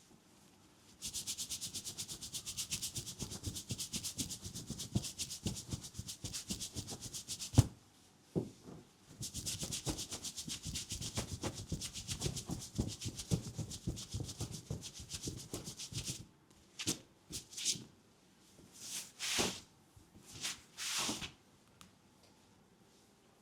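Brisk, fast rubbing strokes of a massage in two long runs, split by a sharp click about a third of the way in, then a few slower single swishes near the end.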